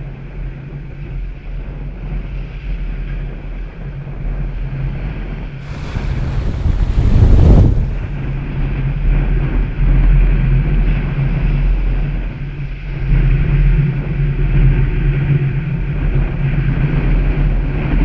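Small waves breaking and washing up the sand at the water's edge, one surge swelling about six seconds in and peaking just before eight seconds, with wind on the microphone and a steady low hum underneath.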